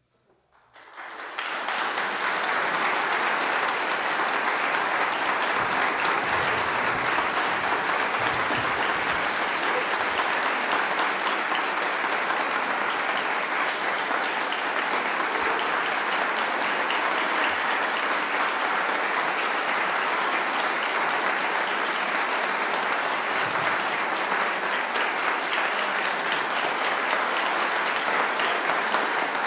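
Audience applauding, starting about a second in and quickly rising to steady, dense clapping.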